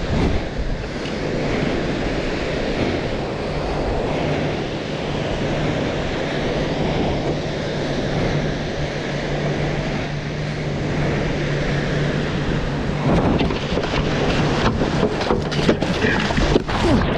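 Wind buffeting the microphone over small surf breaking and washing up a beach, with a faint steady low hum through the middle. Near the end, water splashes and slaps around a surfboard being paddled out through the waves.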